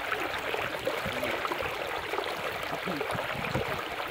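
Steady rushing hiss of flowing water.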